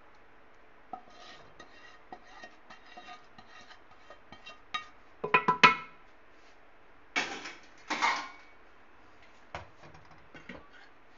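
Metal kitchenware clattering: a spoon and pan knocking against an aluminium cooking pot as fried onions and tadka are spread over layered biryani. Light scattered clicks, a quick run of loud ringing clinks about five seconds in, then two longer rattling clatters around seven and eight seconds.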